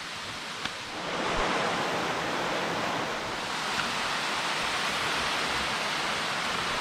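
Small waterfall rushing steadily, growing louder about a second in.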